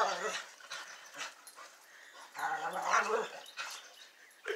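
A dog vocalizing while playing and wrestling with another dog, in two bouts about two and a half seconds apart.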